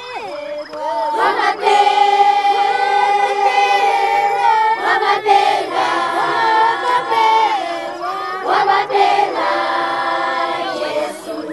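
A choir singing in harmony and holding long notes. The singing swells about a second and a half in.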